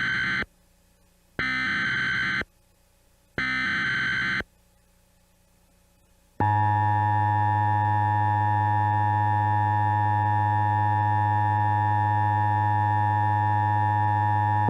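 Emergency Alert System SAME header data bursts: the end of one burst, then two more, each about a second long and a second apart. After a short pause comes the EAS two-tone attention signal (853 and 960 Hz together), a steady, slightly distorted tone held for about eight seconds that cuts off abruptly. It announces a severe thunderstorm warning.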